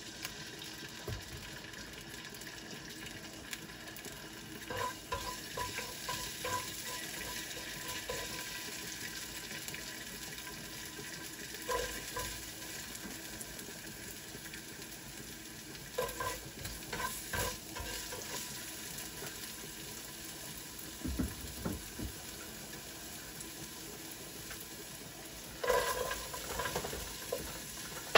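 Minced garlic and sliced onion sizzling in oil in a nonstick pan, with a slotted spatula scraping and tapping the pan now and then as they are stirred. Near the end, long beans are slid into the pan with a louder burst of clatter and sizzle.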